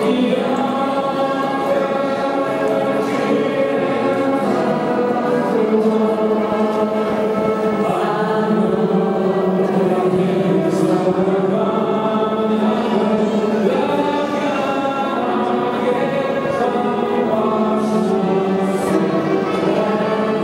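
A large group of schoolchildren singing together, holding long sung notes.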